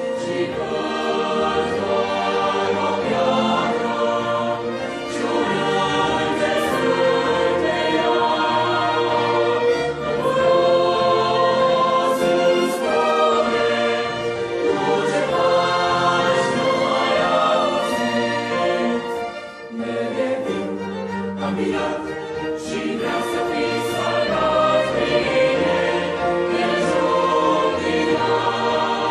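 Mixed choir of men's and women's voices singing with a string ensemble of violins accompanying. There is a brief pause between phrases about two-thirds of the way through.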